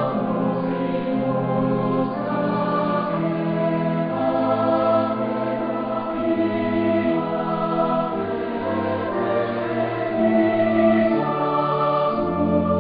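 Slow sacred choral music: a choir singing held chords that change about once a second over a stepping bass line.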